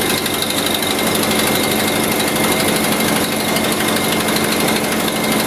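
A 1986 Toyota motorhome's four-cylinder engine running steadily. By its sound the owner judges that it has an exhaust manifold leak, letting hot exhaust blow out at the manifold.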